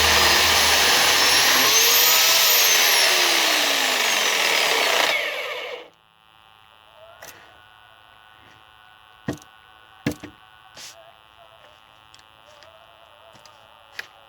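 Electric chainsaw running and cutting, its pitch rising and then falling, then shutting off about six seconds in. After that a low hum and a few scattered knocks.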